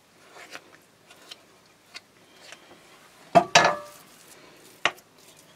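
Small metal spoon working a crumbly topping in a glass baking dish: faint scrapes and ticks, then two sharp clinks that ring briefly about three and a half seconds in, and one more clink near the end.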